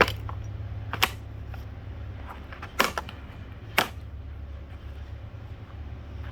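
A ceiling fan blade being struck four times, sharp separate blows about a second apart, over a steady low hum.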